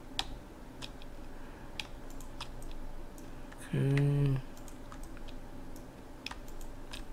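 Scattered clicks of a computer keyboard and mouse: a dozen or so sharp, irregular key presses and button clicks. About four seconds in, a short hummed 'mm' from a man's voice.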